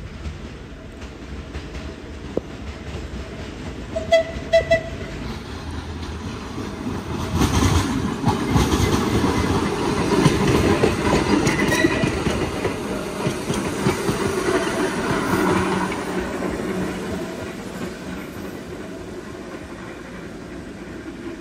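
Vintage wooden subway cars give a few short horn toots about four seconds in, then roll past close by, wheels clattering on the track. The rumble builds to its loudest around the middle and fades toward the end.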